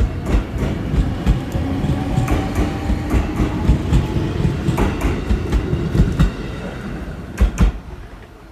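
Train running on the rails, heard from on board: a steady rumble with wheels clacking over rail joints, getting quieter near the end.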